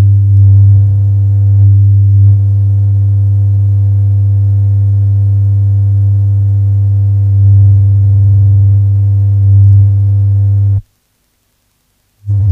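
Experimental drone music from a cassette tape: a loud, steady, low feedback tone with a buzzy stack of overtones, swelling a little now and then. It cuts off abruptly near the end, and after a moment of silence a short burst of the same tone returns.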